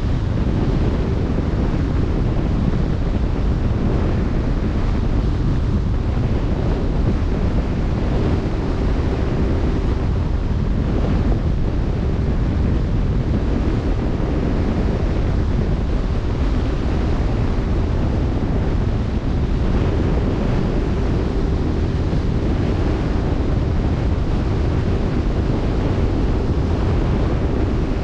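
Wind buffeting the microphone over the steady wash of open-sea waves, with a faint steady hum underneath.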